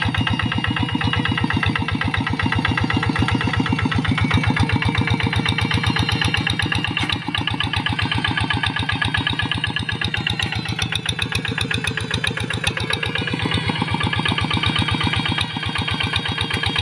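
Kubota-engined two-wheel hand tractor's single-cylinder diesel running steadily with a rapid, even beat of firing strokes while it pulls a plough through dry paddy soil.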